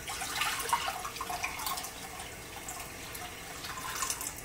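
Water running and splashing in uneven spurts, as the second four cups of water for the chicken broth are measured out.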